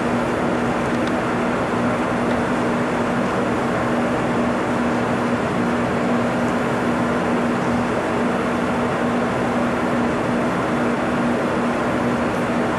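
Commercial refrigeration unit running just after being switched on: a steady rush of moving air with a constant hum, before the compressor has kicked on.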